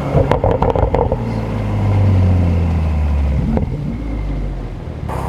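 BMW M235i's turbocharged N55 inline-six coming off the throttle: a rapid string of pops and crackles from the downpiped exhaust for about a second. The engine note then falls steadily as the car slows.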